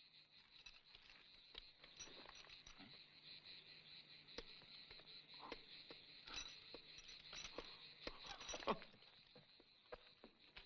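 Faint outdoor ambience: a steady high insect chirring, with scattered light clicks and taps, the loudest near the end.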